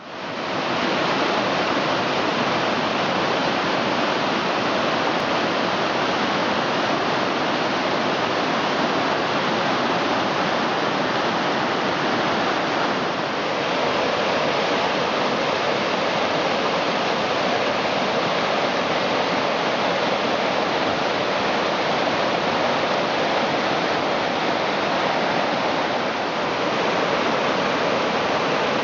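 Fast creek rushing over rocks and small cascades: a loud, steady wash of whitewater that fades in at the very start.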